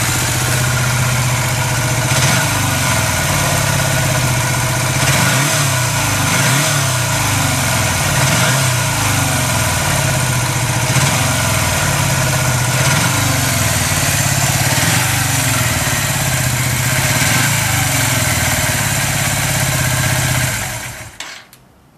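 Yamaha XS250 Special's 17E air-cooled parallel-twin four-stroke engine idling, heard through its muffler, with the note rising and settling slightly every couple of seconds. The sound stops near the end.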